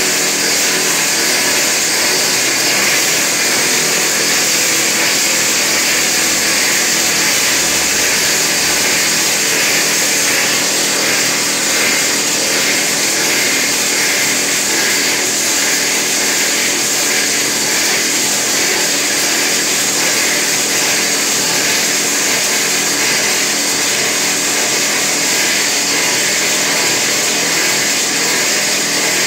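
Hydraulic rock drill on a tunnel drill rig running steadily while drilling in pipe-roofing pipes. It is loud and unbroken, with no pauses.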